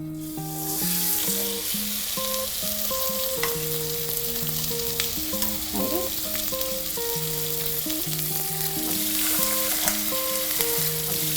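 Chicken legs searing skin-side down in hot oil in a casserole, sizzling steadily. The sizzle builds up within the first second. Background music with held notes plays underneath.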